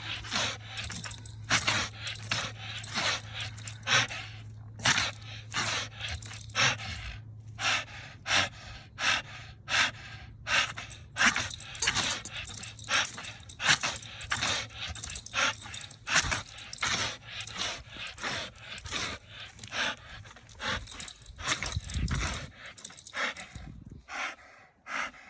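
An American bully dog panting hard, quick noisy breaths about two a second, a dog worn out from exertion.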